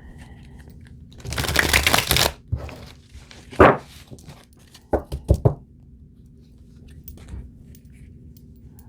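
A tarot deck being shuffled by hand: one rustling riffle of cards lasting about a second, a single sharp snap of the cards a moment later, then a few quick knocks of the deck.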